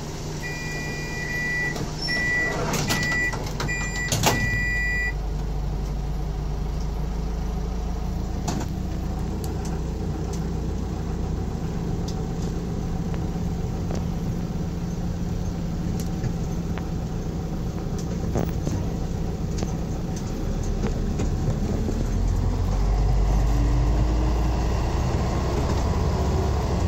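Inside a DMV, a dual-mode bus/rail vehicle: a door warning chime beeps repeatedly for a few seconds while the door shuts with a couple of knocks. The engine then runs steadily and grows louder near the end as the vehicle pulls away.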